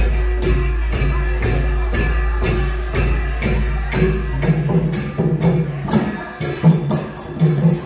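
Thai long-drum (klong yao) dance music: hand-beaten long drums with cymbals in a steady rhythm of about two strokes a second. A low hum underneath stops about halfway through.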